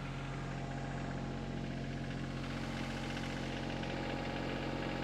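Diesel engine of a piece of digging equipment idling steadily.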